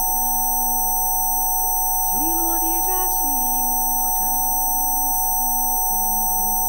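Several steady pure electronic tones, used as Rife frequency tones, hold fixed pitches: one pair in the middle range and others very high. Under them plays slow ambient synth music with gliding notes.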